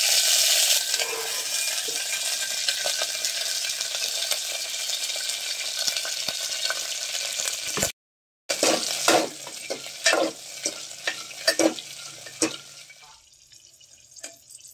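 Green chillies sizzling steadily as they fry in hot oil in an aluminium pot. After a half-second break, a steel ladle stirs them with a run of clinks and scrapes against the pot, and near the end the sizzle drops low as the chillies are lifted out.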